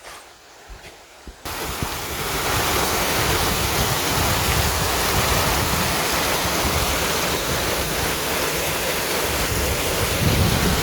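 Wind buffeting the phone's microphone: a loud, steady rushing noise with a fluttering low rumble that comes in suddenly about a second and a half in.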